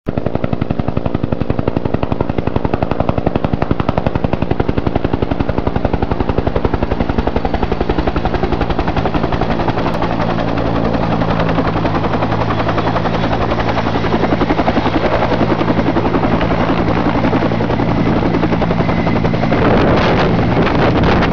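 Helicopter rotor chopping steadily with a steady engine whine underneath as the helicopter comes in to land. Near the end a louder rush of wind buffets the microphone.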